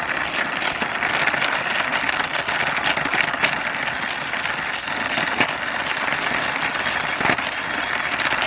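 A small toy car pushed along by hand, its plastic wheels rolling over a hard surface with a steady rattle and many small clicks.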